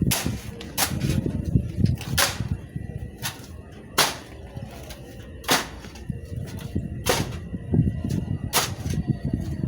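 Sharp knocks repeating about every second and a half, over a low rumble.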